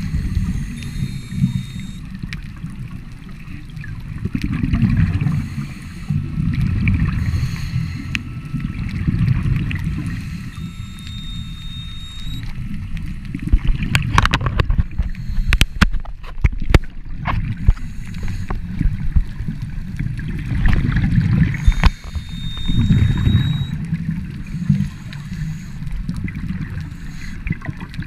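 Muffled underwater rumble of scuba divers' exhaled bubbles leaving their regulators, surging in gurgling bursts every few seconds with the breathing. A cluster of sharp clicks and knocks comes about halfway through.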